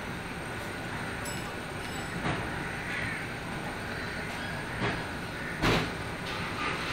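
A few light knocks and clicks of a T-handle hex key and a printer frame plate being handled while a screw is tightened, the loudest about two-thirds of the way through, over a steady background hiss.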